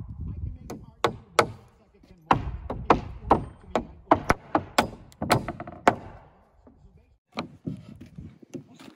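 Framing hammers driving nails into 2x4 studs and plates as a wall frame is assembled on the deck. There are sharp, uneven strikes from two hammerers, a dozen or more in the first six seconds, a short lull, then more strikes near the end.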